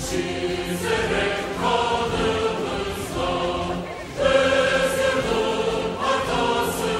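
Crowd of many voices singing a song together in unison, in phrases of held notes with short breaks between them; a phrase about four seconds in is the loudest.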